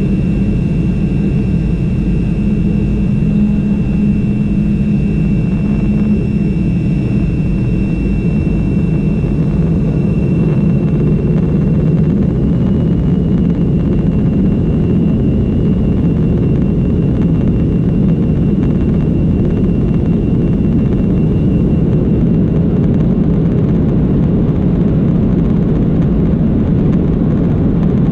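Boeing 737-200's Pratt & Whitney JT8D turbofan engines heard from inside the cabin at low power while the jet taxis onto the runway: a steady rumble with a thin high whine above it, which rises slightly about twelve seconds in and fades out about twenty-two seconds in.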